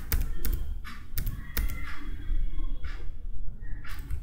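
Computer keyboard keys clicking in short, irregular presses during editing, over a steady low hum.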